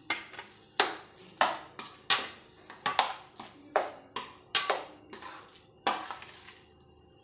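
Slotted metal spatula scraping and clanking against a stainless steel kadai while stirring a thick potato-and-brinjal mash. The strokes come quickly, about two a second, each with a short metallic ring, and thin out near the end.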